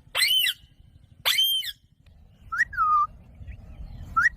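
Indian ringneck parakeet calling four times: two harsh, shrill screeches in the first two seconds, then a whistle that rises and falls, and near the end a rising whistle.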